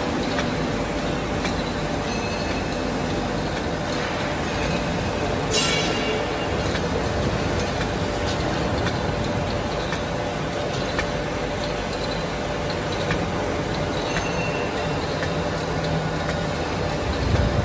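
Aluminium tube latexing and packaging machine running: a steady mechanical hum with light clicking as tubes feed along the conveyor into the stacking hopper. A short hiss of air comes about five and a half seconds in, and a low thump near the end.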